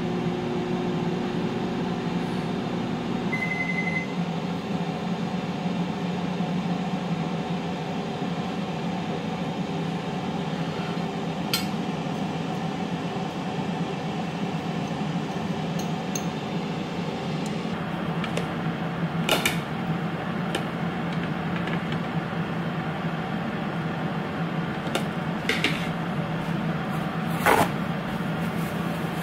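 Power XL Air Fryer Pro running, its fan giving a steady hum, with a short electronic beep about three seconds in. A few sharp clicks come in the second half.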